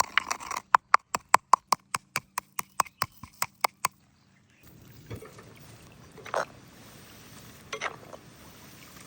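A quick, even run of sharp knocks, about five a second, that stops about four seconds in. After a short pause comes a faint steady hiss with two brief louder sounds in it.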